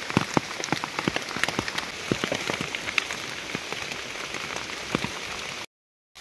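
Rain falling on forest leaves and leaf litter: a steady patter with many separate drops ticking sharply. It cuts out to silence for about half a second near the end.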